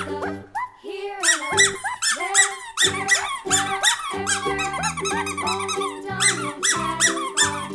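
Bouncy background music of short, squeaky pitched notes that bend up and down over a steady beat, thinning briefly about half a second in.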